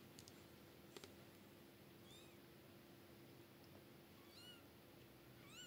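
Kittens mewing faintly: three short, high-pitched mews about two, four and a half and five and a half seconds in, the last one rising in pitch. A couple of small clicks come in the first second.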